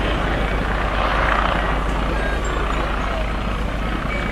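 Air ambulance helicopter flying low overhead: steady, heavy rotor noise with a deep rumble underneath.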